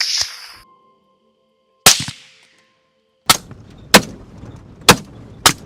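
A short burst of hissing noise, then a single sharp bang about two seconds in, followed from about three seconds by a run of sharp bangs, roughly two a second, over faint steady musical tones.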